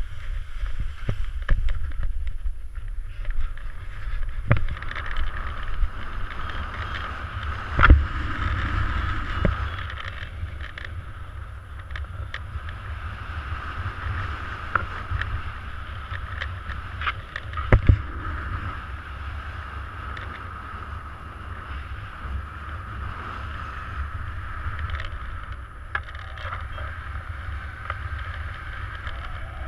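Wind rushing over an action camera's microphone in paraglider flight: a steady low buffeting rumble with a hiss of airflow. A few sharp knocks, the loudest about 8 and 18 seconds in.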